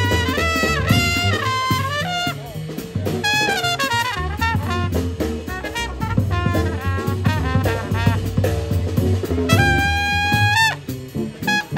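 Small jazz combo playing live: trumpet and saxophones carry the melody over upright bass and drum kit. Near the end the horns hold one long note together that cuts off suddenly.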